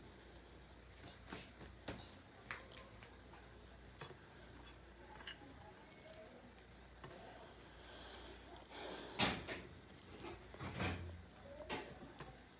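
A person eating by hand: faint clicks and scrapes of fingers and food against a glass dish, with two louder knocks about nine and eleven seconds in.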